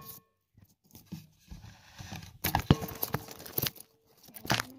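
Handling noise: a few scattered light clicks and knocks with faint rustling, after a brief near-silent moment at the start.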